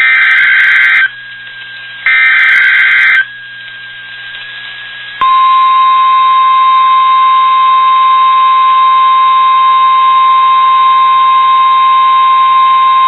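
NOAA Weather Radio test signal. Two harsh bursts of SAME digital header data sound about a second apart, and after a short pause the steady 1050 Hz warning alarm tone starts about five seconds in and holds. Together they mark a weekly test of the warning system.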